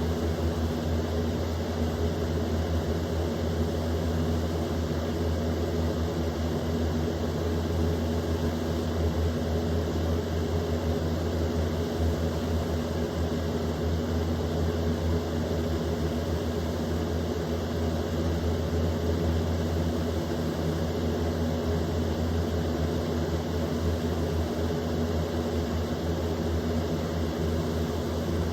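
Easy Home box fan running steadily on high speed: a low electric-motor hum under an even rush of air from the blades.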